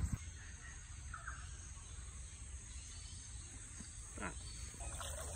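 Rainforest ambience: insects chirring steadily, with a short bird chirp about a second in. A low rumble of phone handling sits on the microphone, with a knock at the start and a brief rustle about four seconds in.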